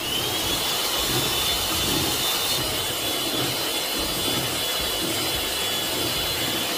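Electric hand mixer switched on and running with its beaters in thick brownie batter while chopped nuts are mixed in: a steady high motor whine over a rough, scraping noise.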